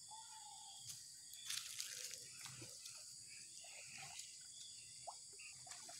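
Faint splashing and sloshing of shallow muddy water as a person wades and gropes in it by hand, a small cluster of splashes about one and a half seconds in, over a steady high hiss.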